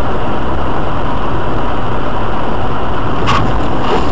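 Steady, loud engine and tyre noise of a car driving on a snowy road, heard from inside the car. A single short sharp knock comes about three seconds in.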